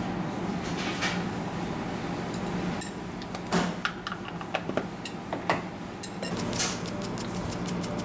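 Kitchen room sound: a steady mechanical hum, with scattered sharp clicks and knocks from about three to seven seconds in.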